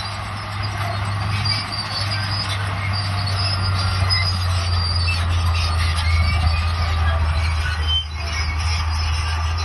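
Crawler bulldozer working, its engine running with a steady low hum while the steel tracks squeal and squeak.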